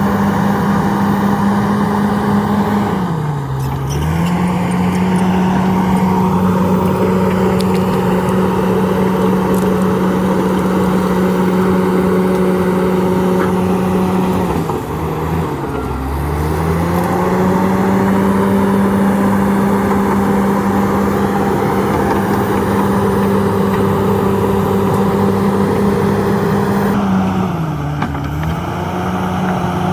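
Diesel engine of a Komatsu D68ESS crawler bulldozer running hard and steady. Its note drops briefly and comes back up three times, about twelve seconds apart.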